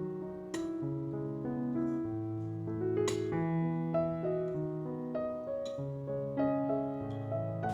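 Soft background piano music, sustained notes in a slow melody, with a few faint clicks over it.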